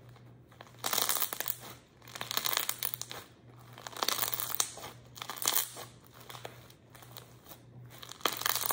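Thick homemade slime loaded with mix-ins being kneaded, pressed and pulled by hand, giving irregular bursts of crackling and crinkling.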